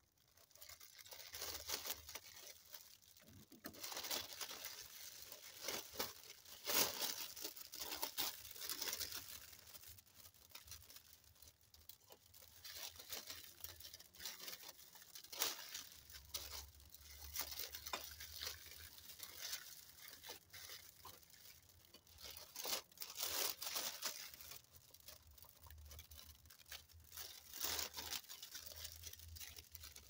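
Clear cellophane wrapping crinkling and rustling in irregular bursts as it is pulled off a birdseed ornament, with the crinkle-cut paper shred filler rustling along with it.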